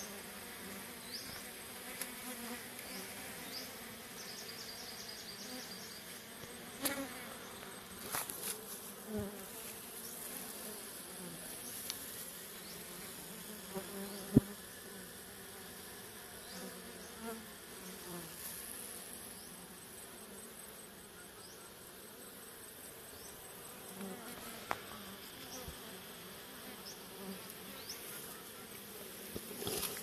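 Honeybee swarm clustered on a pole, buzzing in a steady low hum. A single sharp click comes about halfway through.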